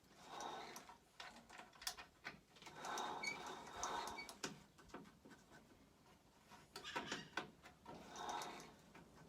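Hand tools working on the scooter's rear sprocket and belt hardware as it is tightened up: faint spells of clicking and scraping metal, each lasting about a second, four times.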